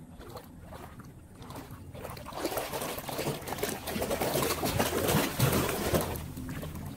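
Floodwater rushing and gurgling into a curb-side street drain inlet. It builds up about two seconds in and eases off near the end.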